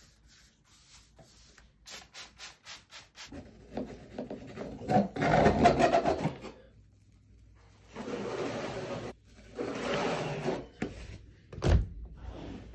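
A long plastic strip dragged across freshly skimmed plaster on a wall to level it. A run of quick short scrapes about four a second comes first, then longer, louder scraping strokes in two spells, and a sharp knock near the end.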